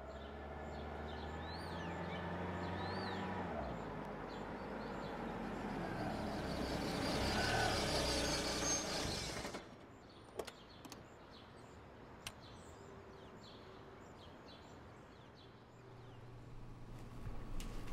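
A motor vehicle running and coming closer, growing louder for most of the first half and cutting off abruptly about ten seconds in, with birds chirping. A few sharp clicks and a low hum follow in the quieter second half.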